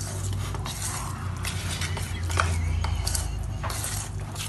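A spoon stirring wet semolina batter in a stainless steel bowl, with irregular scrapes and clicks of metal on metal, over a steady low hum.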